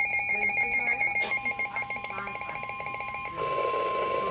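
NOAA Weather Radio tornado-warning alert: a weather radio's rapid pulsing alarm, joined about a second in by the steady 1050 Hz warning alarm tone. The pulsing stops about three seconds in, and the long tone holds on over a hiss of radio static.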